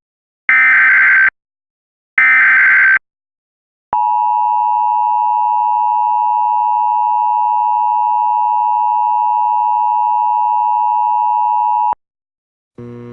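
Emergency Alert System broadcast: two short bursts of SAME digital header data, then the two-tone EAS attention signal held steady for about eight seconds before cutting off sharply. The sequence signals an incoming emergency alert message.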